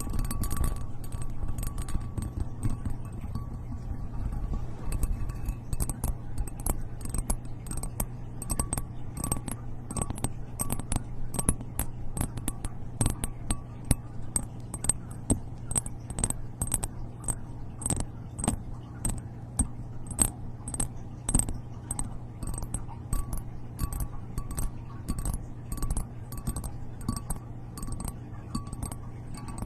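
A steady run of light, sharp taps or clicks, about two to three a second, over a constant low hum.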